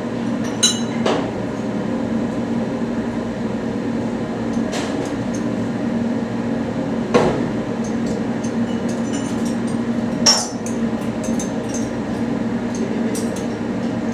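Metal tools and parts knocking and clinking: a handful of sharp metallic strikes, the loudest about seven and ten seconds in, with lighter clinks near the end, over a steady machinery hum.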